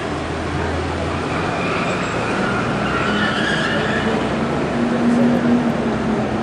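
A motor vehicle engine running nearby, a steady drone that grows somewhat louder about five seconds in.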